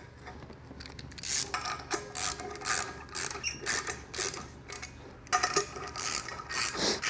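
Small hand ratchet clicking in short, irregular runs as the bolts holding a transmission brake drum to its yoke are run down hand-tight.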